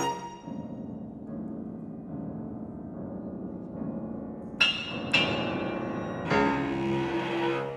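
Piano trio of violin, cello and grand piano playing a contemporary chamber piece: a quieter held passage, then two sharp accented attacks about half a second apart, then a loud sustained chord that fades near the end.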